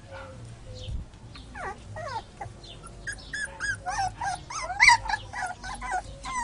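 Puppies yipping and whimpering in short high cries as they wrestle, few at first and then coming thick and fast about halfway through, with one loudest yelp near the end.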